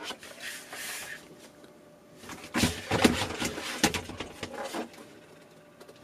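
Handling noise from a small plastic ceramic space heater being turned around and moved on a tabletop: rustling and scraping with light knocks, busiest from about two to five seconds in.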